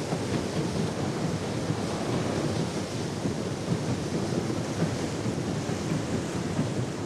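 Paddle steamer's paddlewheels churning the water: a steady rushing, splashing noise, heaviest in the low range.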